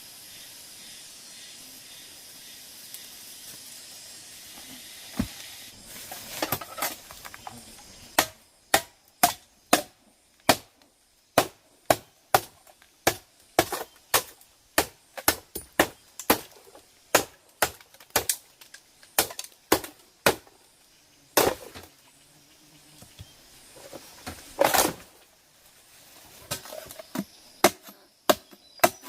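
Steady high hiss, then a run of sharp strikes from a hand tool, about two a second, with a short pause and a longer scraping burst before the strikes resume near the end.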